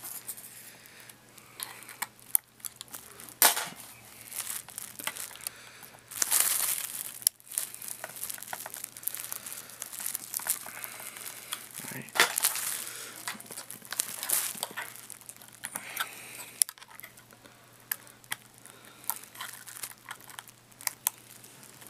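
Bubble wrap crinkling and crackling under a laptop as it is handled and pressed down, with scattered sharp clicks and scrapes from work on the plastic screen lid.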